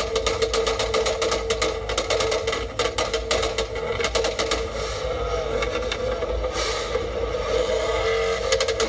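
Mitsubishi Lancer Evolution X's turbocharged four-cylinder with an aftermarket performance exhaust, held at high revs in a steady drone while the exhaust pops and crackles rapidly.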